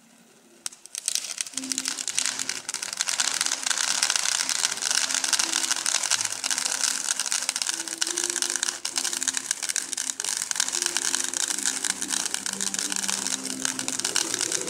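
Row of firework fountains spraying sparks with a dense, crackling hiss full of fine pops. It comes in suddenly just under a second in and then runs on steadily.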